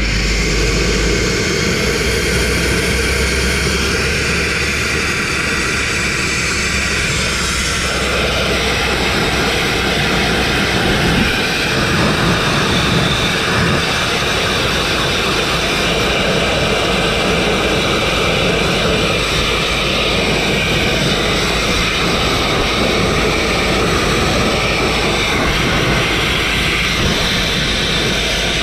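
Grit-blasting nozzle firing a continuous, loud rushing blast of compressed air and abrasive grit against a truck's steel wheel rim and hub, stripping rust and paint. The tone shifts slightly a few times as the nozzle moves over the metal.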